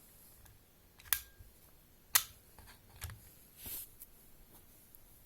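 A few sharp plastic clicks and taps, about a second apart, with a brief rustle near the end, as the multimeter's test probes are handled and swapped over.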